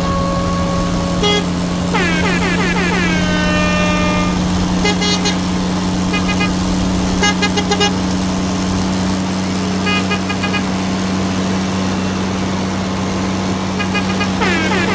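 Electronic vehicle sound effects: a steady engine-like drone under horn-like toots, with clusters of quick stuttering beeps and two falling pitched swoops, one about two seconds in and one near the end.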